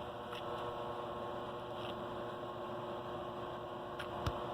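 Steady electrical hum with one constant tone, and a few faint ticks.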